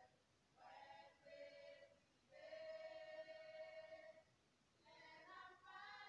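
A small group of women singing a hymn together without instruments, in three phrases with short pauses between them, the middle phrase a long held note.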